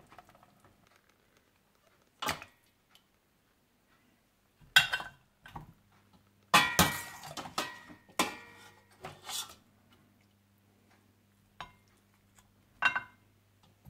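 Stainless-steel slotted skimmer clinking and scraping against a steel cooking pot and a plate as boiled mutton pieces are lifted out of their stock: a scattered run of sharp metallic knocks, busiest in the middle, with quiet gaps between.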